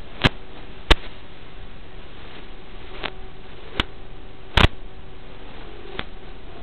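Steady static hiss on the audio of an analog FPV video link, broken by about six sharp clicks, the loudest a little past the middle, over a faint steady hum.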